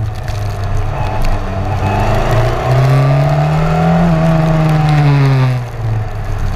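Open-wheel formula race car's engine heard from onboard, revving up and then easing back off, over a steady hiss of water spray from the wet tyres; the engine drops away briefly near the end.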